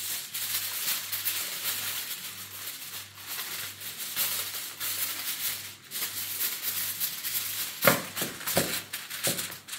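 Aluminium foil rustling and crinkling as it is unrolled off the roll and spread out, with a few sharper, louder crackles near the end.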